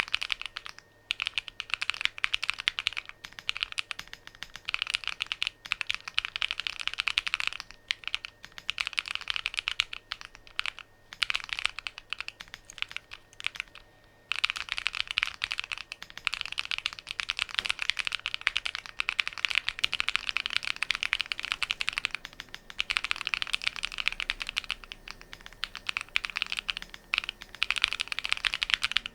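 Typing on a DIY Alice-layout mechanical keyboard: quick runs of key clicks and clacks in bursts of a few seconds, broken by short pauses.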